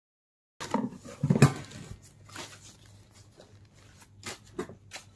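Cardboard box of a casserole being handled and opened: a burst of rustling and knocks peaking about a second in, then scattered quieter scrapes and clicks.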